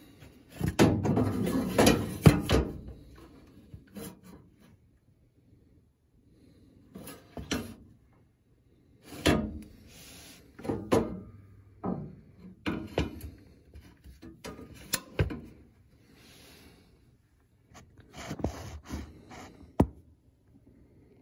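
Irregular rubbing and scraping with a few sharp knocks as hands and a screwdriver work against the oven's sheet-metal underside and wiring. The loudest stretch of scraping is in the first couple of seconds, with sharp clicks later on.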